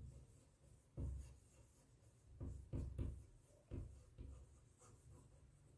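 Chalk writing on a blackboard: a few faint, short scratching and tapping strokes as letters are written, with quiet gaps between them.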